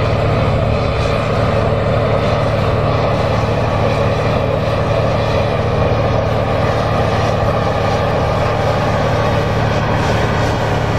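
John Deere 8R tractor's diesel engine running steadily under load while pulling a tillage implement through the soil.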